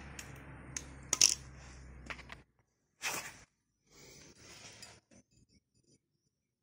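Welding transformer humming steadily with a few sharp metallic clinks over it. The hum cuts off suddenly about two and a half seconds in, followed by a short burst of noise and soft handling rustles.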